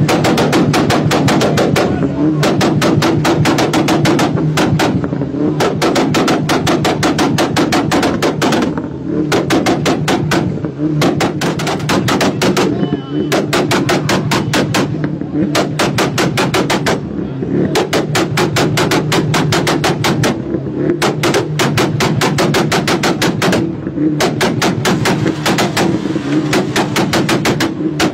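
VW Golf R's turbocharged four-cylinder exhaust banging and popping in rapid volleys, several loud cracks a second in runs with short breaks, over the steady note of the revving engine. These are flame-spitting backfires from the tailpipes.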